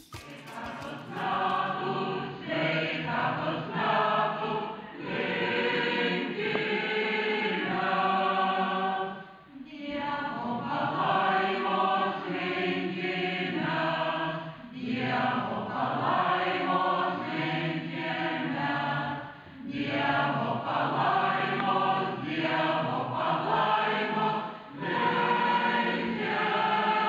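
Mixed choir of men's and women's voices singing together in long held phrases, with short breaks between phrases.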